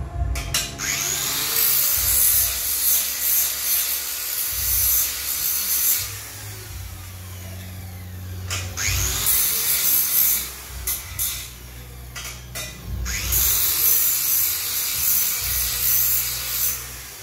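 Angle grinder working steel in three runs of a few seconds each, its motor pitch rising as each run starts and falling as it ends.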